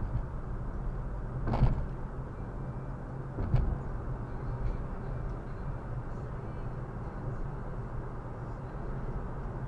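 Car road noise picked up by a Viofo A119 V3 dashcam, with the camera's low rasping vibration noise running steadily underneath: a known fault of this model, cured by fitting its foam pad. Two short louder jolts come about one and a half and three and a half seconds in.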